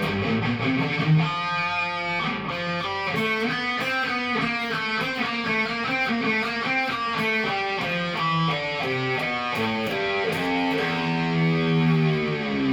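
Cort Viva guitar playing a fast melodic line of quick single notes. Near the end a held note dips in pitch and comes back up.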